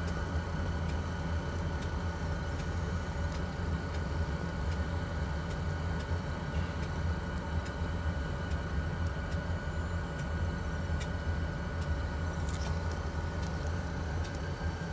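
Steady low rumble of idling engines, with a faint steady whine over it and a few light ticks.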